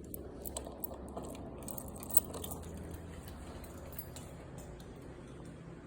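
A low steady hum, with light clicks and rattles over the first two and a half seconds and the sharpest click about two seconds in.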